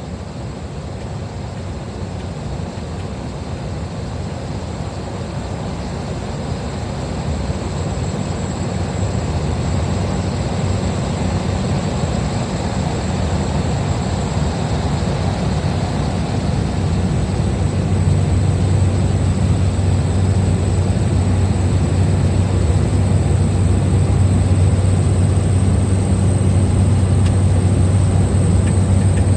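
Small plane's engine and propeller running on final approach to land, growing steadily louder, with a strong steady low drone setting in about two-thirds of the way through.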